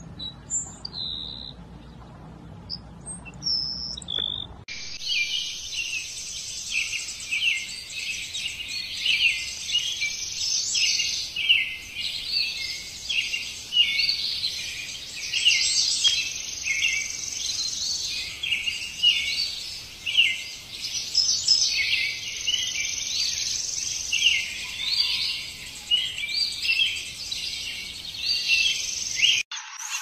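A few thin, high single notes, then from about five seconds in a dense chorus of many birds chirping and trilling over one another.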